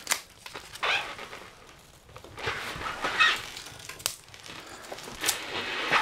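Kindling and logs knocking and scraping against the cast-iron firebox of a small wood stove as the fire is stoked. There are a few sharp knocks, near the start, about four seconds in and again a little after five seconds, between spells of scraping and rustling.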